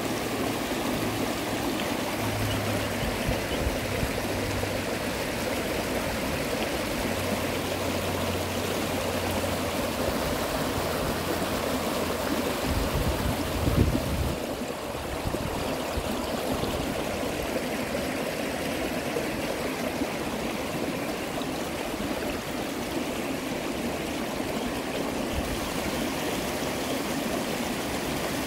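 Shallow creek rapids rushing and trickling steadily over rocks, with a brief low thump about halfway through.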